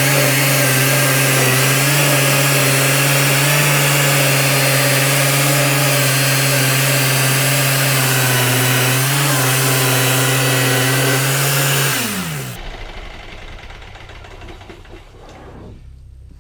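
Homemade bandsaw mill's small gas engine running steadily under load while its bimetal band blade saws through a white oak log. About twelve seconds in, the engine and blade wind down, falling in pitch.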